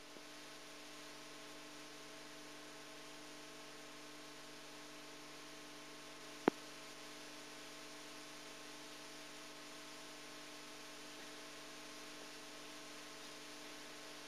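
Steady electrical mains hum with hiss, with a single sharp click about six and a half seconds in.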